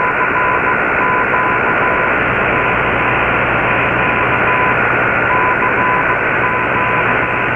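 Shortwave static from an Icom IC-R8600 receiver in AM mode, tuned to a weak, noisy signal on 15140 kHz: a steady hiss cut off above about 3 kHz. Through it runs a steady high whistle, with a slightly lower tone that keeps coming and going in irregular dashes.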